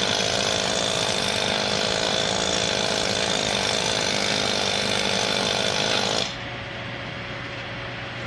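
Portable engine-driven track tool worked on the rail, running steadily, then shutting off abruptly about six seconds in, leaving a quieter steady hum.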